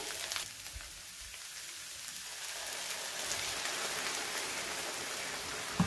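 Vegan mince and onions sizzling in a hot frying pan, a steady hiss that grows louder about two seconds in as oat cooking cream is poured onto the hot pan. A short knock near the end.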